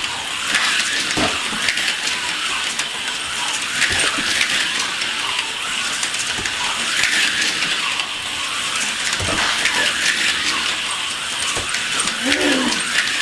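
AFX slot cars running around the plastic track, their small electric motors and gears giving a steady high whirr with rapid clicking. Near the end there is a brief dog whine.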